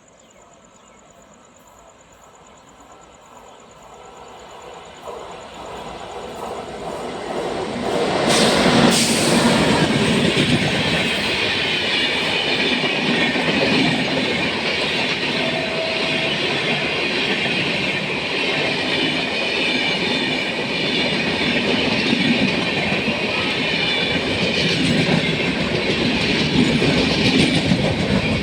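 Passenger train approaching and passing at speed: it grows steadily louder over the first eight seconds or so, then the coaches rush past with a steady roar and wheels clattering over the rail joints. Faint crickets are heard before the train arrives.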